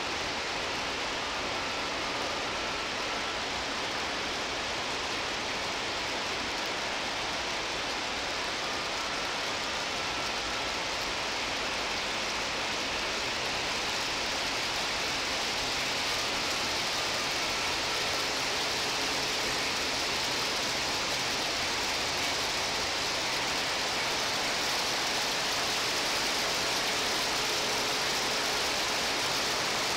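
Heavy cloudburst rain pouring steadily, a dense hiss that grows a little louder in the second half, with a freight train of autorack cars rolling by faintly beneath it.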